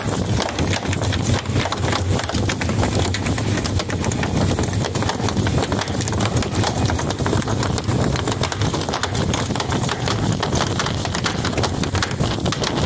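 Fishing boat under way at speed: a steady motor drone under the continual slap and splash of the hull on the water, with wind buffeting the microphone.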